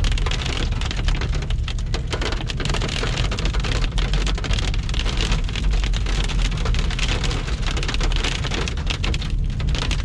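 Small dry hailstones ticking rapidly and densely on a car's windshield and body, heard from inside the moving car over a steady low engine and road rumble.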